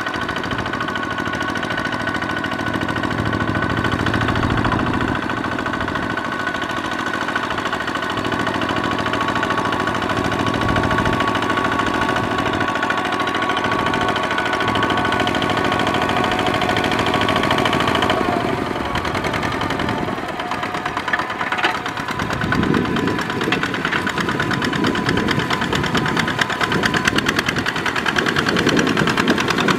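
Two-wheel walking tractor's single-cylinder diesel engine running steadily under load with a knocking chug as it drives its cage wheels through flooded paddy mud. About two-thirds of the way through the sound turns choppier and more pulsing.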